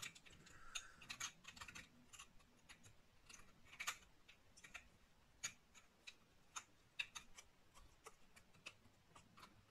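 Faint, irregular small clicks and taps, a few a second, from hands and a small screwdriver working on a laptop's internals as the wireless card is fitted.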